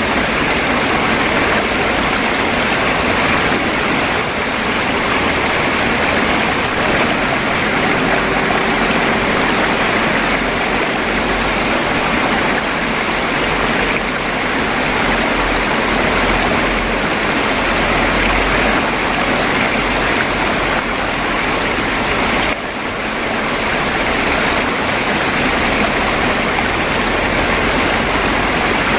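Stream water flowing and babbling steadily over stones, a constant rushing trickle with one brief dip in level about three quarters of the way in.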